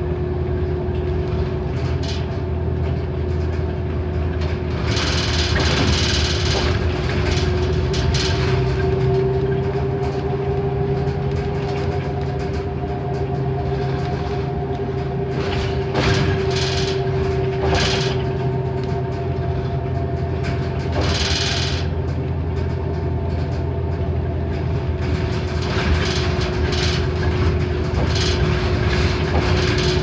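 Interior sound of a NABI 31-LFW transit bus under way: the low, steady drone of its Cummins Westport ISL G natural-gas engine and driveline, with a steady whine held over it. A few brief louder surges of noise rise over the drone.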